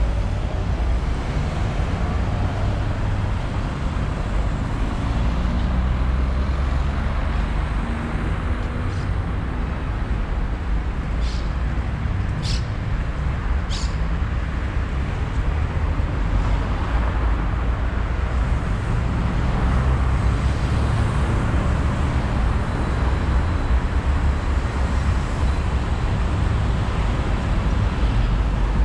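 Steady rumble of a road vehicle on the move, with a few brief sharp clicks about halfway through.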